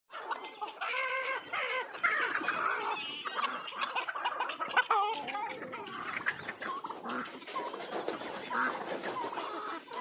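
A flock of chickens clucking, with many short calls overlapping throughout.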